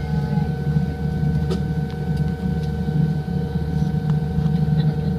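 Boeing 787-9 cabin noise: a steady low rumble with several steady whining tones over it and a few faint clicks.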